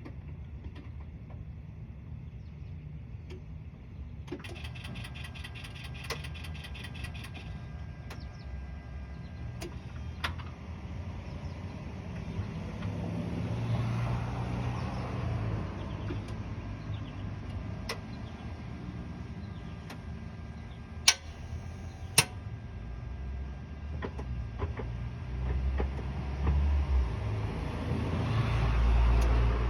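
Mechanical noises under a 2007 Mitsubishi Outlander that won't start, as the key is turned: a rapid, even ticking buzz for about three seconds, then low rumbling that swells twice, with two sharp clicks in between. The engine does not start.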